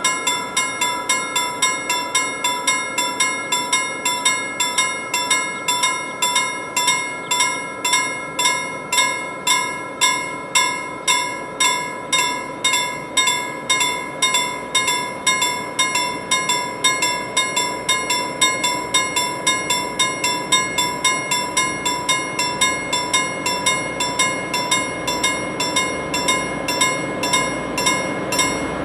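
Railway level-crossing warning bell ringing steadily, about two strokes a second, while the barriers are down: the warning that a train is approaching.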